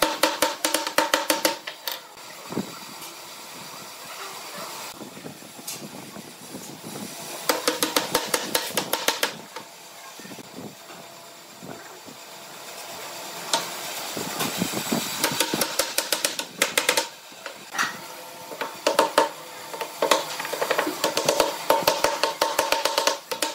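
Claw hammer tapping X-shaped wooden keys into the gaps between the boards of a slab table top. The taps come in about four bursts of quick light blows, with quieter handling of loose wooden pieces between.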